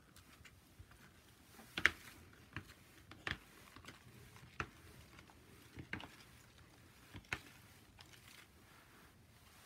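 A plastic credit card dragged in strokes through a layer of shaving cream in a clear tray, giving a run of irregular light clicks and taps, the sharpest about two seconds in.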